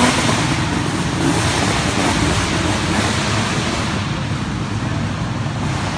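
Go-kart engines running at a race track, a steady noisy din with no single engine standing out.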